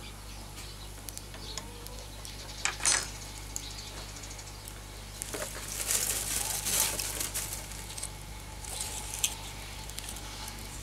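Bamboo campfire crackling, with scattered sharp pops and clicks and a louder rushing stretch about six seconds in.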